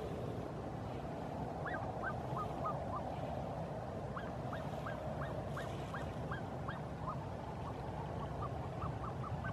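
A flock of Chilean flamingos giving a run of short, rising honking calls, several a second, starting about a second and a half in, over a steady low rumble of wind noise.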